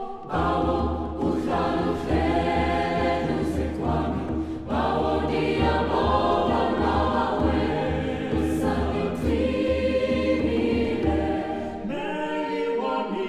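Mixed choir singing in harmony, with a hand drum keeping a steady low beat beneath the voices. The drum drops out about a second before the end while the singing carries on.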